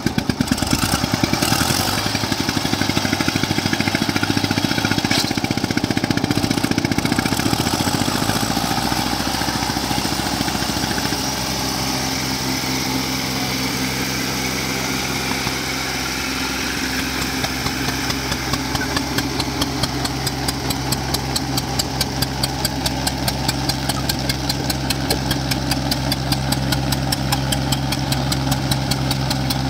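Diesel tractor engines working under load, loud and fast-pulsing for the first several seconds, then settling into a steadier, more even run from about ten seconds in.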